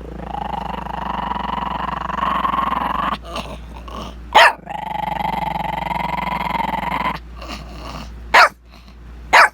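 A puppy growling in two long drawn-out growls, broken by three short, sharp barks, the last two near the end.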